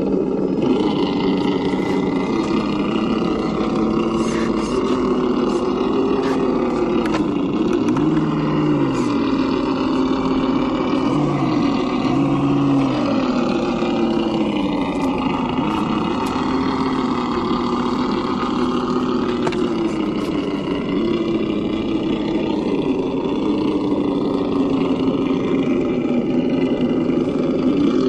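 Electric motor and geared drivetrain of a Traxxas TRX-4 RC crawler whining under throttle, the pitch rising and falling as it crawls, with a few faint clicks and ticks over it.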